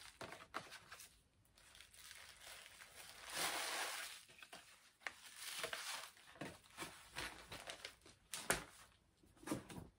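Paper and cardboard packaging crinkling and rustling as boxes are handled, with a longer rustle about three seconds in, then a run of small knocks and crackles, the sharpest near the end.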